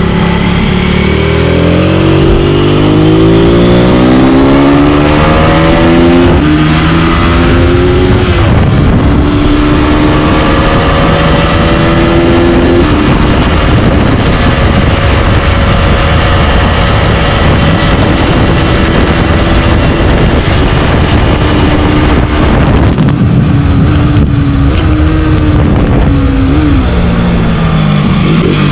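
Aprilia RS4 125's single-cylinder four-stroke engine at full throttle, revs climbing through the gears with a short dip at each shift, then held high, falling away near the end as it slows.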